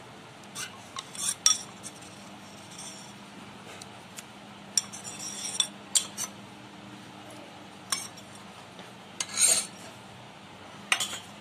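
Metal spoon clinking and scraping against a steel bowl and the inside of a pressure cooker while ginger-garlic paste is spooned in: a dozen or so scattered short clinks and taps, the loudest about a second and a half in and again near the end.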